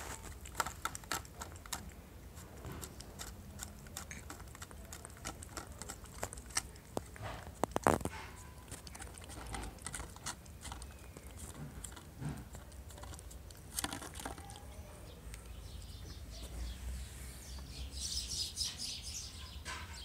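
A cat eating from a foil food tray: irregular small clicks and smacks of chewing and licking, with a quick run of louder clicks about eight seconds in.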